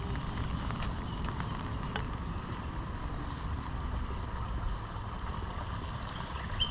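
Steady rain in a forest, with scattered faint drops ticking and a low rumble underneath. A brief high chirp sounds near the end.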